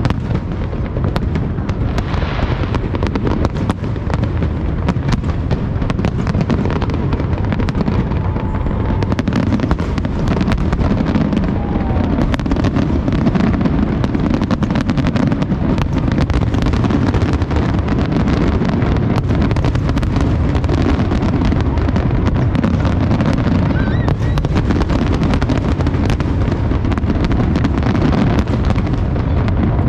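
Fireworks going off in a dense, unbroken barrage: a steady low rumble of blasts under constant rapid crackling pops.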